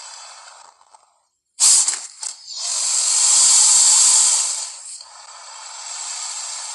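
Liopleurodon creature sound effect: after a brief silence, a sudden loud noisy blast and a second short one, then a long rushing hiss that swells and fades.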